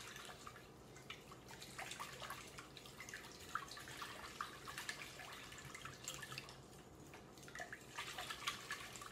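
Wire whisk beating a thin liquid batter of eggs, milk and melted butter in a glass bowl: faint, quick, irregular clicks of the wires against the glass with light sloshing of the liquid.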